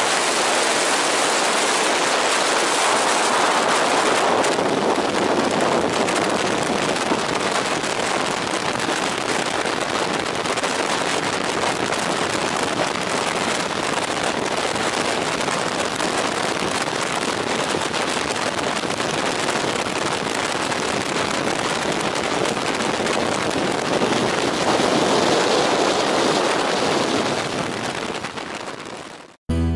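Strong rush of freefall wind buffeting the camera's microphone, a steady noise with no tone in it, fading out near the end.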